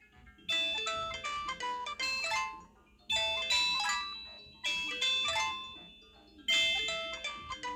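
A Samsung SGH-D500C mobile phone playing a polyphonic ringtone: a chiming melody in short phrases, each starting sharply and fading away, repeated about every two seconds.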